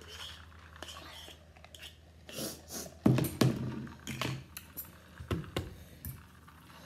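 Eating sounds during a noodle meal: scattered clicks and knocks of utensils against a dish, with chewing, and two louder knocks about three seconds in.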